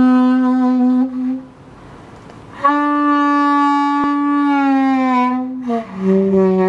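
Alto saxophone playing a slow phrase of long held notes. The first note ends about a second and a half in; after a short pause a higher note is held for about three seconds and sags slightly in pitch at its end, followed by a lower note with a light vibrato.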